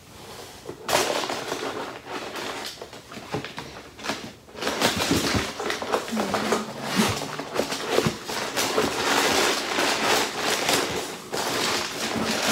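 Packaging rustling and crinkling as it is handled, in uneven bursts that begin about a second in, with a short pause near the middle.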